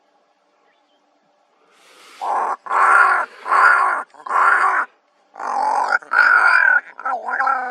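Two ravens calling: a run of loud, harsh calls about half a second each, starting about two seconds in, some running together, with shorter, quicker calls near the end.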